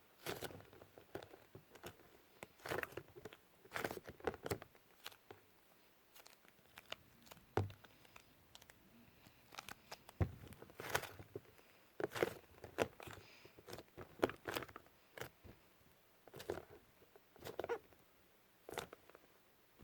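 Hands squeezing, stretching and pulling apart soft lightweight modelling clay (iClay), giving irregular short crackly squishes and small tearing sounds.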